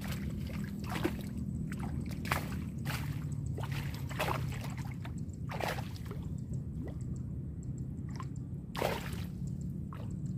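Soft water splashes and sloshes now and then, about eight short ones at uneven times, the strongest near the end, over a steady low hum.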